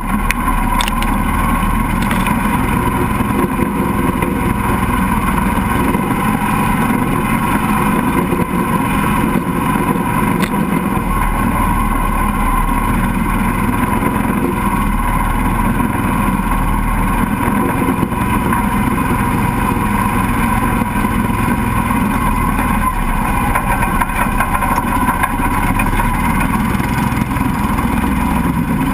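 Mini swamp buggy's engine running steadily as it drives through shallow swamp water, with water churning and splashing around the tyres.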